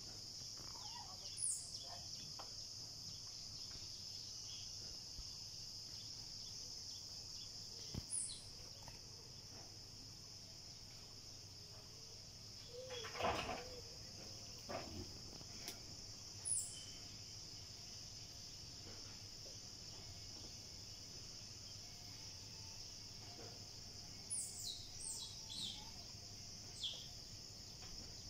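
Steady high-pitched insect chorus from the forest, with short falling bird calls now and then and a small cluster of them near the end. A louder wavering call stands out about thirteen seconds in.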